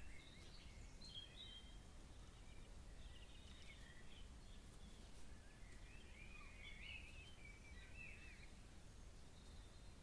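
Faint bird calls at night: short, high chirping and warbling phrases, coming and going, busiest in the second half, over a steady low background rumble.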